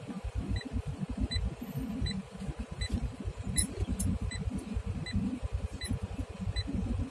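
Low, uneven rumble of a car's engine and tyres heard from inside the cabin while driving over a rough dirt road, with a faint short beep repeating about every three quarters of a second.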